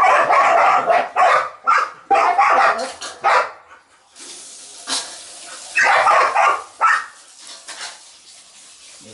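A dog barking in loud bouts through the first three seconds and again about six seconds in.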